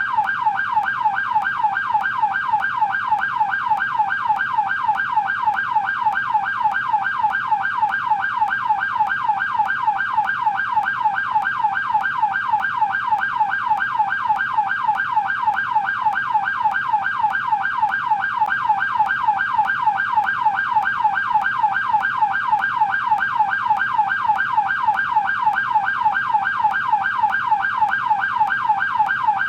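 American police car siren on its yelp setting: a steady, rapid wail sweeping up and down, about three sweeps a second.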